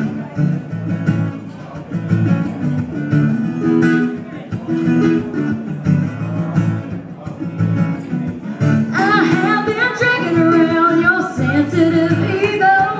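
Acoustic guitar playing the intro of a country song in steady strummed chords; a woman's singing voice comes in about nine seconds in.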